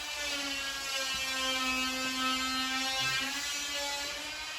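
A steady electric buzz with a whine made of several pitched tones that drift slightly up and down, like a small motor or electrical device running.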